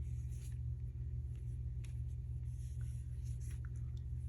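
Faint taps and scrapes of a phone in its new case being handled, over a steady low hum.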